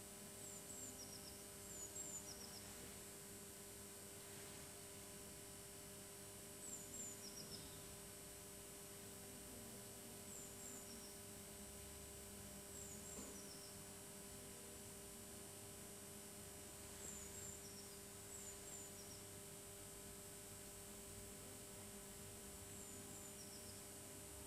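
Near silence: a faint steady hum, with faint short high chirps in small clusters every few seconds.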